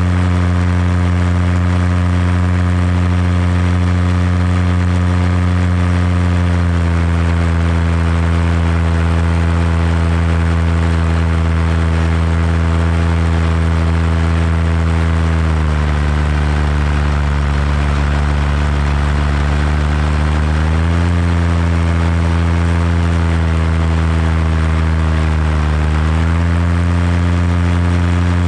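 Paramotor engine and propeller running steadily in flight. The pitch eases down slightly about a quarter of the way in, drops lower for about five seconds in the middle before climbing back, then dips briefly again near the end as the throttle is eased and reopened.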